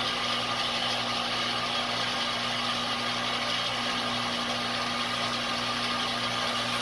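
Electric target retriever motor running steadily, drawing a paper target along its overhead track back to the shooting booth: an even motor hum with a whirr.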